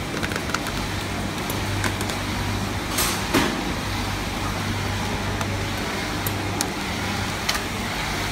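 Hot melt gluing machine for PET plastic boxes running with a steady low hum, with a few scattered clicks and light knocks, the loudest about three seconds in.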